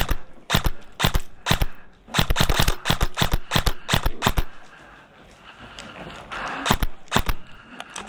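Airsoft guns firing: a few single shots, then a fast string of shots lasting about two seconds, then two more single shots near the end.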